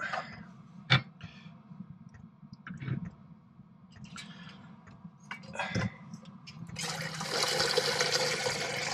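A few sharp metal clinks as a stainless steel kettle and its lid are handled over a sink, the loudest about a second in. About seven seconds in, water from the tap starts running steadily into the kettle.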